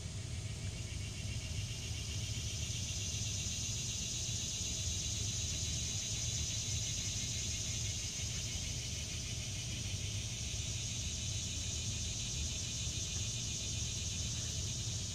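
Steady outdoor insect chorus, a high, rapidly pulsing buzz, over a low rumble.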